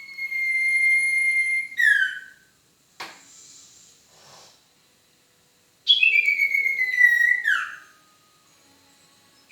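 Owl call played as a lure: a long, high whistled note held steady that slides down at its end, given twice. The second note starts higher and drops in two steps. A short breathy hiss comes between them.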